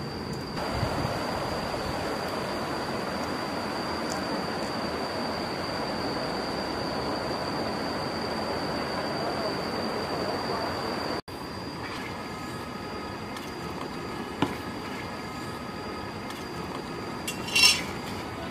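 Steady outdoor noise with a thin high steady tone, cut off abruptly about two-thirds through, then a quieter stretch ending in a brief clink as a bowl is set down on a rock.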